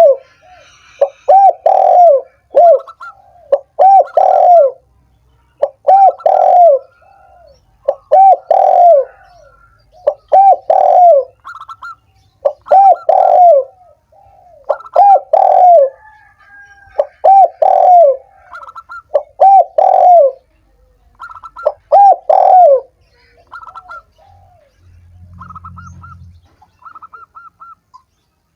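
Spotted dove (tekukur) cooing: loud phrases repeating about every two seconds, with short higher notes between them. Near the end the cooing stops and only quieter, short high notes continue.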